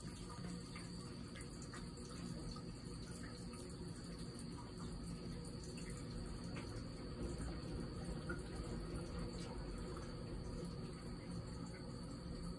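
Water running steadily from the hand-wash spout on top of a toilet tank into its small basin, the trickle that flows while the tank refills.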